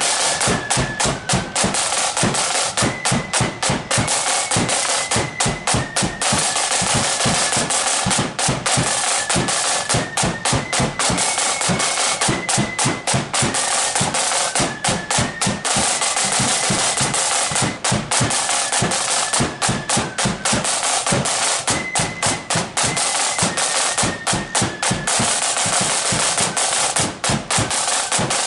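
Marching flute band playing: a high flute melody over rapid snare drum rolls and bass drum beats.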